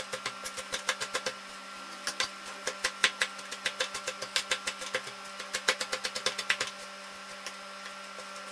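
Kitchen knife chopping fresh parsley on a cutting board: quick knocks about five a second in runs, with short pauses between runs, over a steady hum.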